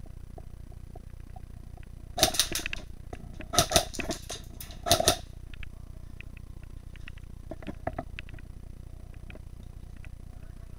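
Airsoft gun firing three short bursts of rapid shots, about two, three and a half and five seconds in, followed by a few fainter scattered clicks.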